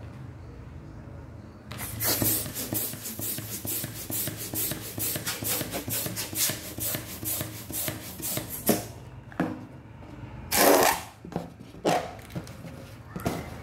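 Blue latex balloon being inflated with quick, even strokes of air, about four or five a second, for some seven seconds. Then a louder rush of air with rubbing of the latex as the inflated balloon is handled.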